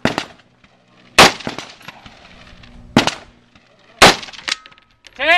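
Four rifle shots, the second, third and fourth spaced about two, one and a half, and one second apart, with a smaller crack half a second after the last.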